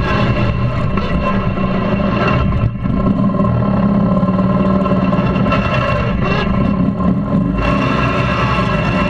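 Lawn tractor engine running steadily under way as the tractor drives along a dirt trail, with a brief dip in level about two and a half seconds in.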